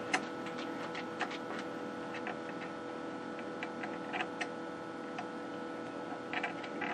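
Irregular light clicks and ticks from turning the horizontal drive control on the back of a vintage valve TV set, over a steady hum of several tones from the running equipment.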